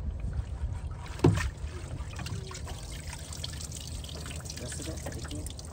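Water dripping and trickling off a wet cast net as it is shaken out and lifted over the boat, with a single sharp thump about a second in.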